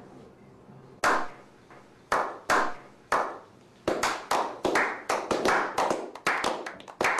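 Slow clap: single hand claps about a second apart at first, then coming faster and overlapping as more people join in, until a small group is clapping quickly.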